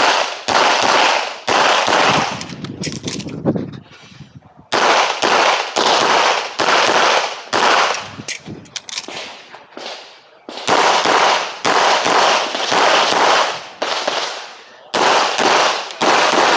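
Handgun shots fired in quick strings during an IPSC practical-shooting stage, roughly two shots a second. Each report trails off in a short echo, with brief pauses between strings.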